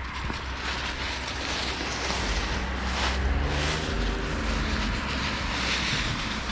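Wind rumbling on the microphone over a rushing outdoor hiss that swells and fades a few times.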